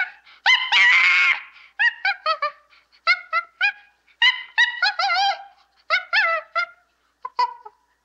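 Gibbon calling: a run of short, high hooting notes, many rising and falling in pitch, in quick groups with short gaps. The longest and loudest call comes about half a second to a second and a half in.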